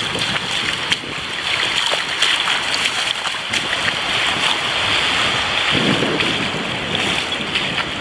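Small waves washing in over the sand at the water's edge, a steady rush with a fuller surge about six seconds in.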